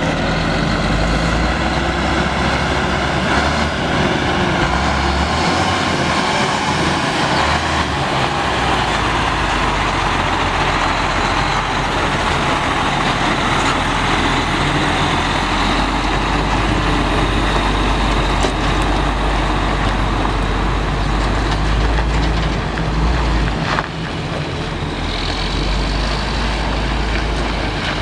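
The Cummins M11 10.8-litre inline-six diesel of a 1999 Sterling A9500 concrete mixer truck runs steadily with a deep rumble. Near the end there is a single sharp click, and the sound settles a little quieter.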